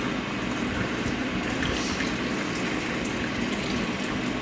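A drink poured from a can in a long thin stream into a tall glass, splashing steadily as the glass fills.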